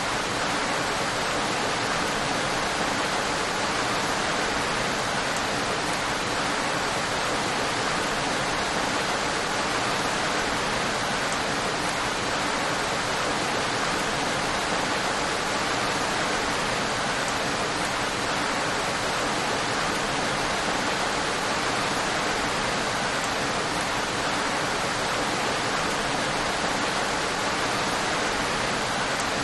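Steady, heavy rain: an even hiss with no distinct drops, thunder or changes.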